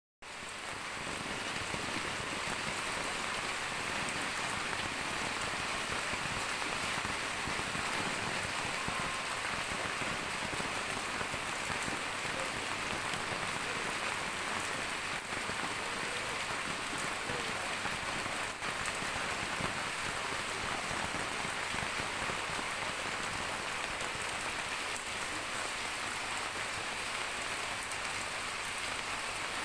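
Steady rain falling and pattering on surfaces, a constant even hiss.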